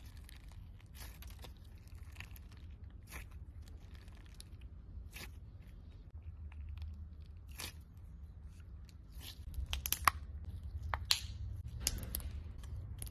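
Slime being squeezed and stretched by hand, giving irregular crackles and clicks, with a few sharper, louder pops about ten to twelve seconds in.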